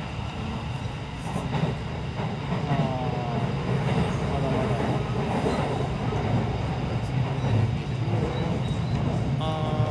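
Rapid Marine Liner electric train running, heard from inside the passenger car: a steady low rumble of the wheels and running gear on the track.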